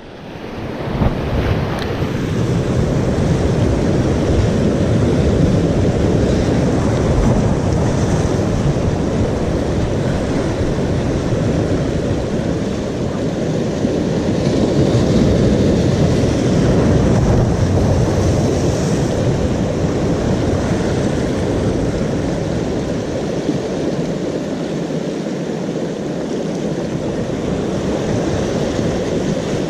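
Sea surf washing over shore rocks, mixed with wind buffeting the microphone: a steady, loud rushing noise.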